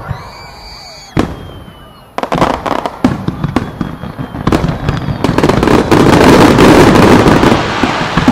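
Starmine fireworks barrage: a short high whistle and a single sharp bang in the first second or so, then from about two seconds in a fast string of launches and bursts that builds into a dense, loud crackle of many small bursts.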